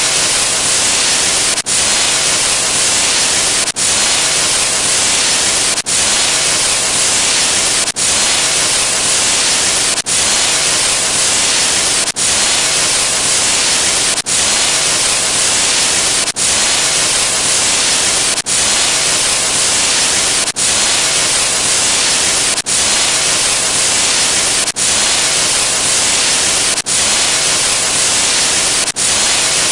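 Loud, steady static hiss like white noise, with a short dip in level about every two seconds.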